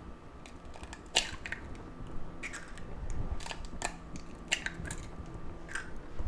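Eggshells being cracked and broken open over a bowl: a series of sharp cracks and clicks with soft crunching of shell.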